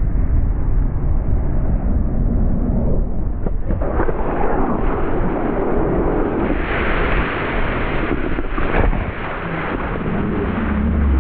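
Wind buffeting the helmet-camera microphone: a loud, continuous, gusting rumble with no clear events.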